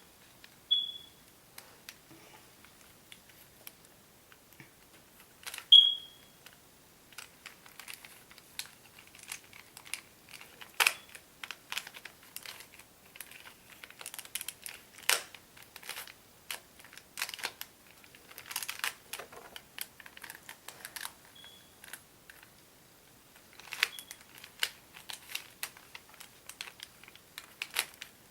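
Rubik's Cube being turned by hand: rapid plastic clicks and rattles of the layers, in irregular flurries that get busier about a third of the way in. A few short high tones sound over them, the loudest about six seconds in.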